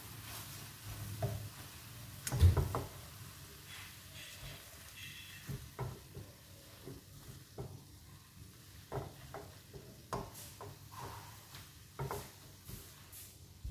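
Noodles and seafood stir-frying in a nonstick wok: a soft, steady sizzle under irregular scrapes and taps of a silicone spatula tossing the food, with one louder knock about two and a half seconds in.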